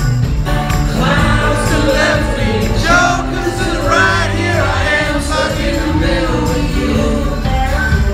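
Live pop-rock band playing a song: singing over acoustic and electric guitars, recorded from the audience.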